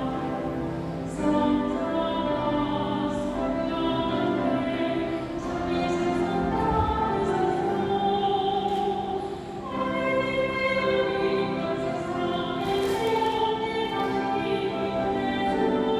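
A choir singing a sacred chorus in long held notes, several voices together.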